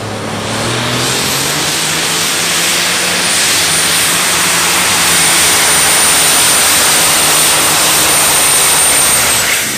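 Light super stock pulling tractor's diesel engine at full power under load during a pull, building over the first second and then holding loud and steady with a high whistle over it. The sound drops away near the end as the throttle comes off.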